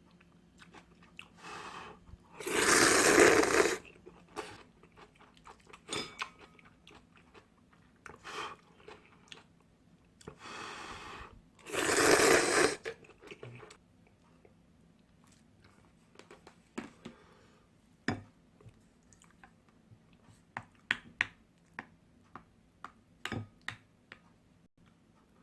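A person eating instant ramen with no talking: two loud slurps of noodles, each about a second long, and quieter chewing with wet mouth clicks and smacks between them.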